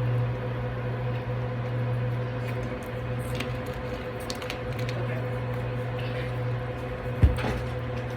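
Steady low electrical hum with a faint steady higher tone, a few faint crackles in the middle, and one sharp knock about seven seconds in.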